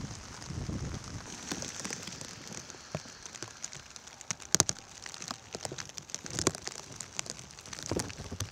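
Light rain falling, with scattered ticks of individual drops and a sharper double click about four and a half seconds in.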